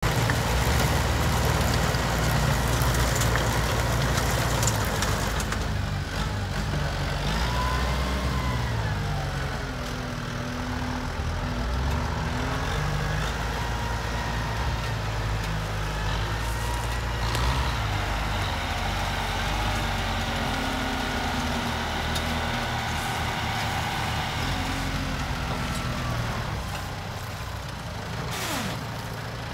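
Farm tractor's diesel engine running steadily under load as it tows a wagon, with a higher mechanical whine that rises and falls now and then.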